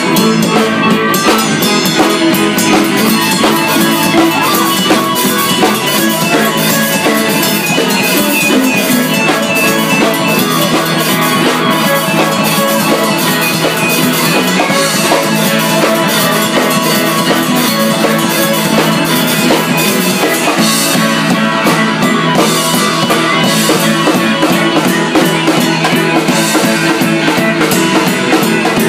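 Live band playing a tarantella: drum kit with close-spaced strokes and cymbals, over electric bass and strummed acoustic guitar.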